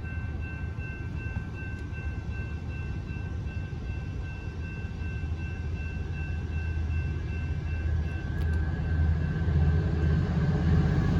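Approaching train: a low rumble that grows steadily louder as it nears, with a steady high-pitched ringing tone over it for most of the time.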